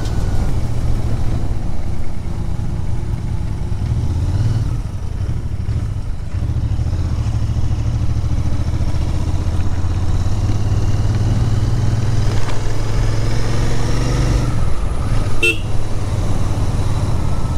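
Motorcycle engine running steadily on the move, with road and wind noise. A brief sharp sound comes near the end.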